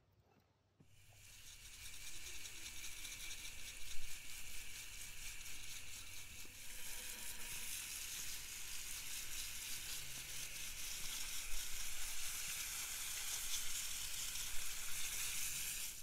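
Garden hose pistol-grip spray nozzle hissing steadily as it sprays water onto the soil and lava-rock top dressing of a potted succulent arrangement. It starts about a second in, after a brief near-silence, and grows a little stronger about halfway through.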